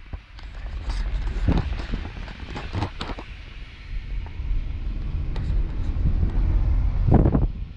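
Road and engine noise inside a moving car's cabin: a steady low rumble, with a few short sharp knocks, the loudest near the end.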